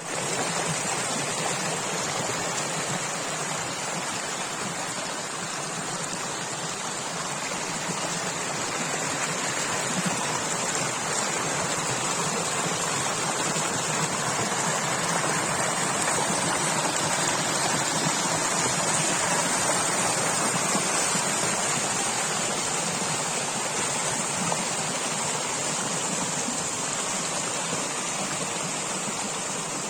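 Stream of water flowing: a steady, even rush, with a high hiss over it and no breaks.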